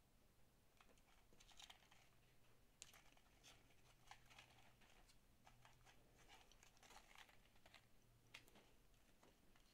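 Faint handling of small paperboard candy boxes: fingers rubbing, tapping and scraping the cardboard in scattered soft clicks and rustles, with one box set down on the table near the end.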